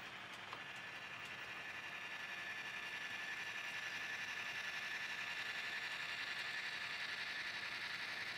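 HO scale model train rolling along the track, led by a Burlington Northern GP9 locomotive: a steady mechanical whine with a faint hiss from the running gear. It grows slowly louder as the locomotive nears.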